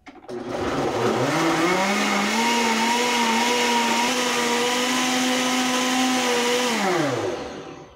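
Countertop blender motor grinding a thin liquid marinade of citrus juice and achiote paste. It spins up with a rising whine over the first two seconds, runs steady, then winds down with a falling pitch about seven seconds in.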